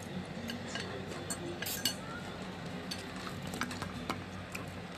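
Metal fork and ceramic spoon clinking and scraping against a ceramic bowl while eating noodles: scattered light clicks, with a sharper clink a little under two seconds in. A steady low hum runs underneath.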